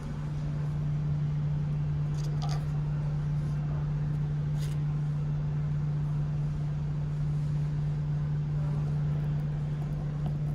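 Steady low hum of the ferry Osaka II's machinery, one unchanging pitch, with a few faint ticks.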